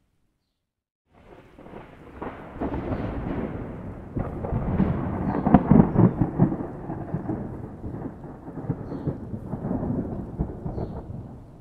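Thunder rolling, starting about a second in after a moment of silence: a low rumble that builds to its loudest around the middle with a few sharp cracks, then rumbles on and slowly fades.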